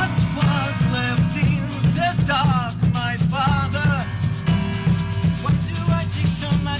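A live band playing an instrumental passage: strummed acoustic guitar and keyboard over a steady bass line, with quick, even rattling ticks and a melody line that bends in pitch.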